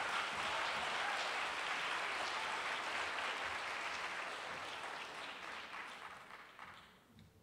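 Audience applauding, the clapping fading over the last couple of seconds and dying out.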